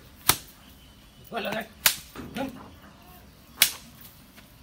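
A stick strikes a cow three times, about a second and a half apart, each blow a sharp crack. Brief voices come between the blows.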